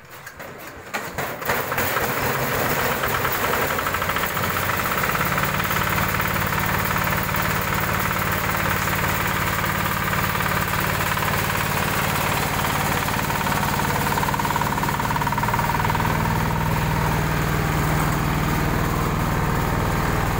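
Small stationary diesel engine driving a corn sheller: it starts with a few uneven knocks, then settles into steady running. Its note shifts slightly about fifteen seconds in.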